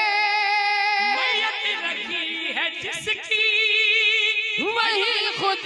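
A man singing a devotional manqabat unaccompanied into a microphone, with no words in this stretch. He holds a long note, breaks into ornamented turns, then holds another long note from about three seconds in before the pitch falls away.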